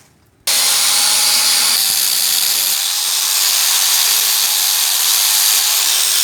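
Angle grinder fitted with a chainsaw attachment starts suddenly about half a second in and runs steadily at full speed.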